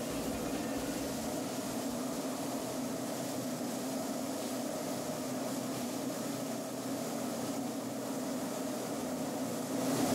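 Steady hum of a running motor, even throughout.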